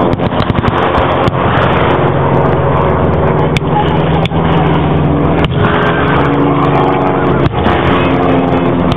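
A heavy engine running steadily under load, like a military vehicle's, with a few sharp cracks of blank gunfire scattered through.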